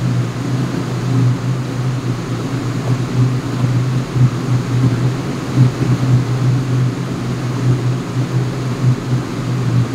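Loud, steady drone of a ship's engine-room ventilation and machinery: a low hum with an even hiss above it.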